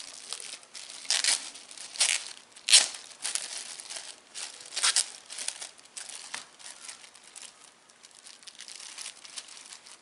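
Clear plastic bag crinkling as it is handled and opened, in irregular crackles that are loudest in the first few seconds and die down after about six seconds.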